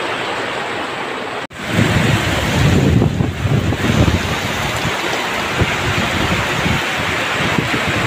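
Heavy tropical downpour with strong gusting wind, the gusts buffeting the microphone as low rumbles. The sound cuts out for an instant about a second and a half in, then comes back louder and gustier.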